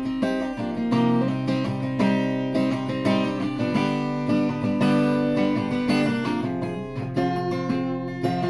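Acoustic guitar strummed in a steady rhythm with no singing, the strongest strums about once a second.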